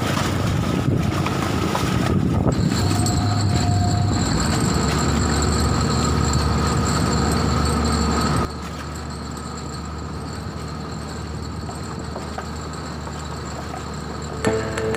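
Fishing boat's engine running with a steady drone. About eight and a half seconds in it drops suddenly to a lower level and carries on steadily.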